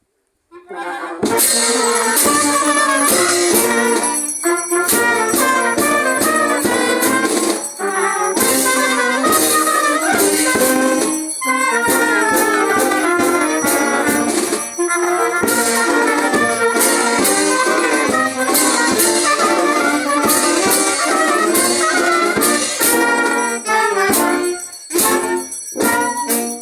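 Brass band playing a march-like piece, trumpets and trombones over drum and cymbal strikes, starting suddenly just under a second in.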